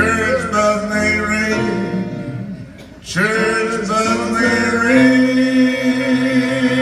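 Male lead singer closing a doo-wop ballad over a live band with guitar: two long sung phrases, the second drawn out as a sustained final note with vibrato over a held chord.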